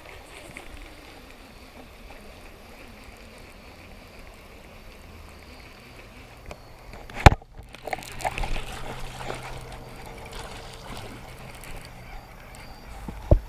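Steady flowing creek water. About seven seconds in there is one loud sharp knock, followed by a few seconds of irregular knocking and rustling, and another sharp knock near the end.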